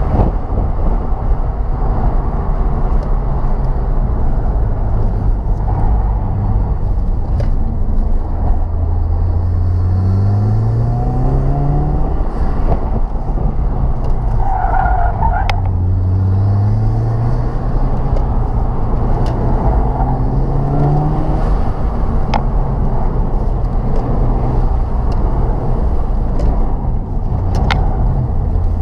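Turbocharged 2.0-litre flat-four engine of a modified Subaru WRX running under load on a drive, its revs climbing twice with steady engine and road noise in between.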